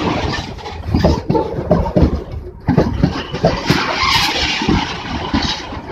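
Goods train wagons rolling past: an irregular clatter and knocking of steel wheels over the track, with a high rushing, squealing noise. It eases for a moment about two and a half seconds in, then picks up again.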